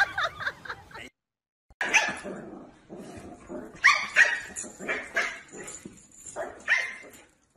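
A dog barking in a string of short, sharp barks, about six of them, starting about two seconds in.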